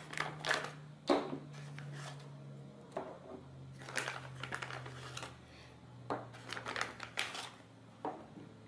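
Plastic zip bag rustling and crinkling as small yellow plastic gear motors are pulled out of it, with about half a dozen light clicks and knocks as the motors are set down on a hard tabletop. A faint steady low hum sits underneath.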